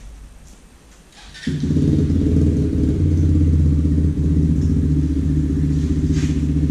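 A motorcycle engine comes in suddenly about a second and a half in and runs steadily after a few light clicks.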